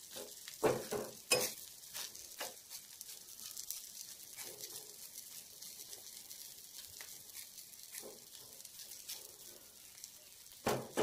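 Omelette sizzling in hot oil in a metal kadhai, still cooking through in the middle, with a metal spatula scraping and tapping against the pan now and then, most often about a second or two in and again near the end.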